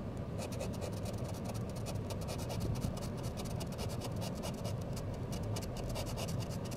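Scratch-off lottery ticket having its coating scraped off with a pen tip in quick, repeated strokes.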